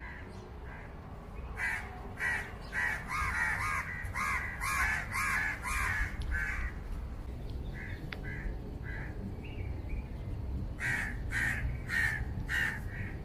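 Crows cawing: quick runs of short, harsh calls, about ten in a row in the first half, a few scattered in the middle and another run near the end, over a low steady rumble.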